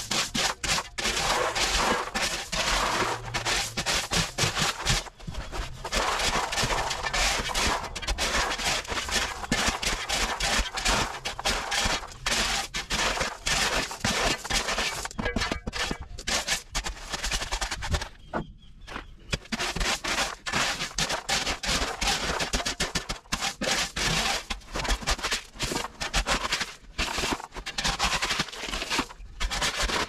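A steel shovel scraping into a pile of pea gravel and tipping it out, with stones crunching and rattling in a dense, rapid run of clicks. There is a brief pause about two-thirds of the way through.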